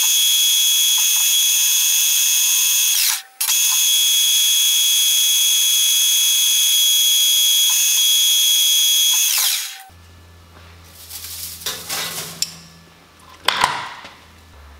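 A lathe's insert cutting tool turning an aluminium bar gives a loud, high-pitched screeching whine of several tones together. It breaks off briefly about three seconds in, then stops just before ten seconds with a slight drop in pitch. After that come a low hum and a few clattering knocks of tools being handled.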